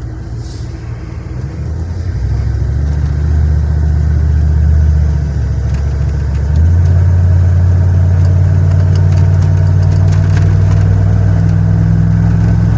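V8 engine and drivetrain heard from inside the cabin while the vehicle drives and accelerates, with a deep, loud drone. The drone steps up about two seconds in, dips briefly around the middle, then rises again and holds steady, as the automatic transmission works up through the gears, which now seem to be shifting properly.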